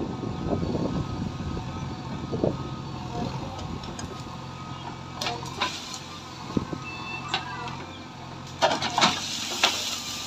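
JCB 3DX backhoe loader's diesel engine running steadily while the backhoe digs and dumps soil. Scraping and several sharp metallic clanks from the bucket and boom come through, a few about halfway and the loudest a little before the end.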